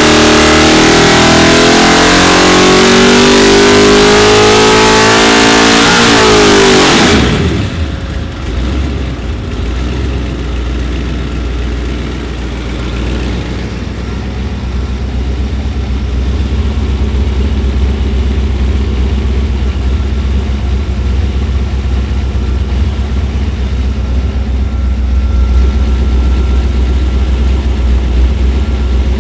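A 329 cu in big-bore short-stroke small-block Chevy V8 (400 block, 283 crankshaft) on an engine dyno, pulling loud at full throttle with its pitch slowly rising. About seven seconds in the throttle is chopped and the revs fall away, and the engine settles into a steady low idle rumble.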